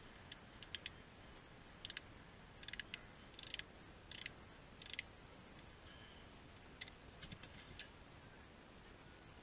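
Ratchet wrench clicking faintly in short bursts, several clusters spread over the seconds, as the 12 mm caliper bolts on a car's front brake are being backed out.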